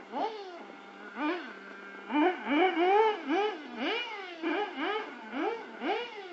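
Small nitro two-stroke engine of an OFNA Hyper 7 RC buggy, a Novarossi, revving up and down over and over as the throttle is worked, about two rises and falls a second, loudest a couple of seconds in.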